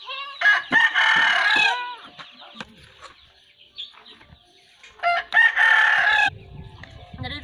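A rooster crowing twice: one crow of about a second and a half near the start, and a second, slightly shorter one about five seconds in.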